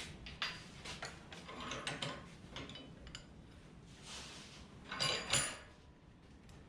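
Hand hacksaw cutting a 3/8-inch O1 tool steel rod: irregular rasping metal-on-metal strokes and clicks, strongest twice about five seconds in.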